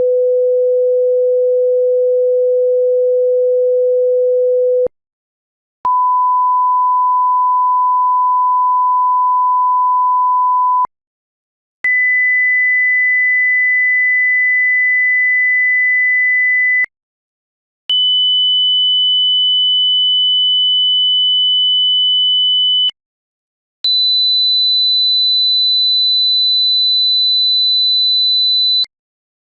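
Hearing-test sine-wave tones: five pure steady tones, each about five seconds long with a second of silence between, stepping up in pitch at roughly 500, 1,000, 2,000, 3,000 and 4,000 hertz.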